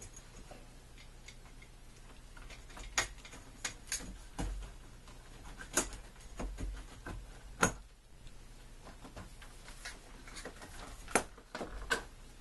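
Irregular clicks and light knocks as the top frame rail of a marker board is worked onto the panel's edge and lined up, with about half a dozen sharper clicks spread through.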